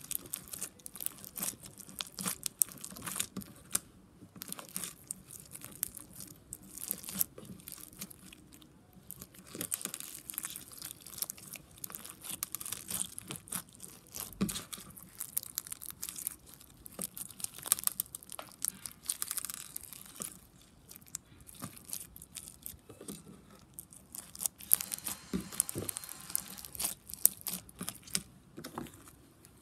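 Blue foam-bead slime (floam) being kneaded and squeezed by hand, giving a dense, irregular crunching and crackling as the beads and sticky slime are pressed and pulled apart.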